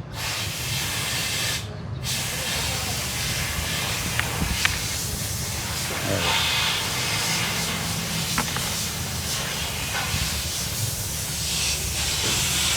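A loud, steady hiss from a jet of pressurised air or spray, cutting out briefly about two seconds in and then resuming, over a low steady hum.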